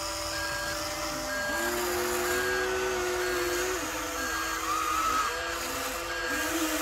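Electric motors and gearing of Huina RC excavators whining as the booms and buckets move. The pitch steps up and down as the motors start, stop and change speed.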